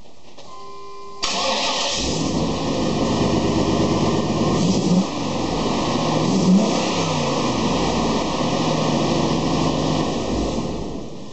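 A 1998 GMC Sierra's 7.4-litre (454) V8 is started about a second in and runs, with two short revs, then is switched off near the end. New exhaust gaskets have replaced worn-out ones, and it now runs quiet.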